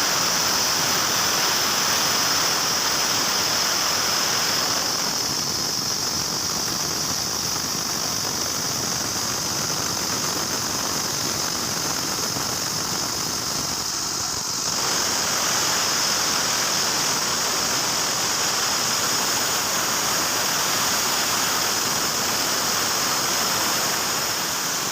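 Heavy machinery running hard: a loud, steady hiss with a high whine over it, easing off somewhat between about 5 and 15 seconds in.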